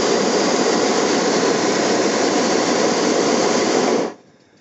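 Hot air balloon's propane burner firing in one long blast, a loud, steady rushing noise that cuts off abruptly about four seconds in.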